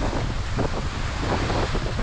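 Wind buffeting the microphone in a steady, gusty rumble, with ocean surf washing behind it.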